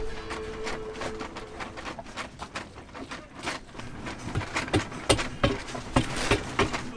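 Irregular metal clinks and knocks of hand tools working on a bare Yanmar 2GM diesel engine block during teardown, with several louder knocks in the second half.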